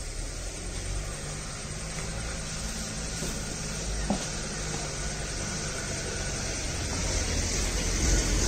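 Steady hiss with a low rumble underneath that grows louder near the end, and a single faint click about four seconds in.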